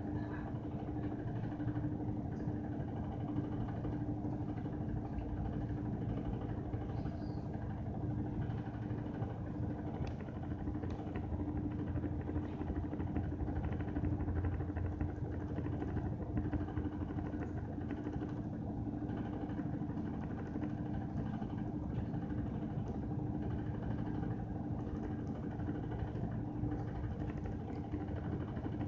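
Washing machine running with a steady, rough humming motor noise and one constant tone.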